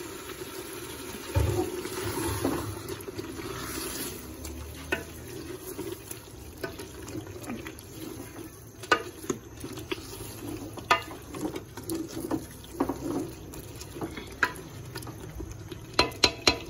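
Chicken pieces frying down in wet korma masala in an aluminium pressure cooker, a steady wet sizzle and bubbling, the bhuna stage of the korma. A wooden spoon stirs and knocks against the pot now and then, more often near the end.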